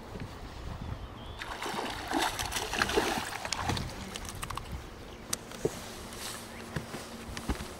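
A hooked bass thrashing and splashing at the water's surface beside the boat, loudest a couple of seconds in, then a few sharp knocks as it is swung onto the boat deck and lands there.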